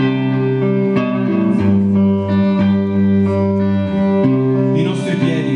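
Guitar played through an amplifier: slow chords with long held notes that change every second or so, strummed again about a second in and near the end.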